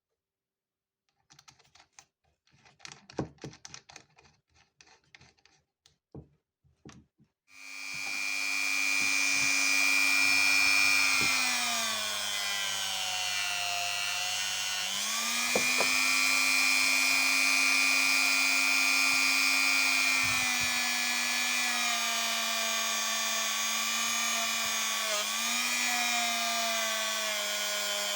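A few soft clicks and rattles of handling, then a small high-speed power tool starts and runs steadily with a whine. Its pitch sags for a few seconds around the middle and briefly again near the end.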